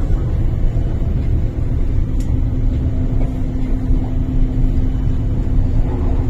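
An MTR Tuen Ma line IKK-Train running, heard from inside the carriage as a steady low rumble. A steady hum comes in about two seconds in.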